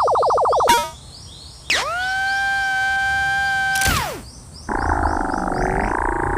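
Cartoon level-crossing warning sounds, electronic and made up. A fast-pulsing alarm tone cuts off with a click under a second in. Then comes a single held tone that slides up at its start and drops away at its end, and from about halfway a rougher, wavering tone that carries on.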